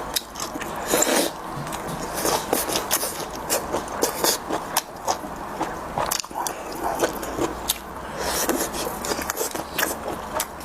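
Close-miked eating sounds: biting and chewing with irregular wet clicks, crackles and scrapes.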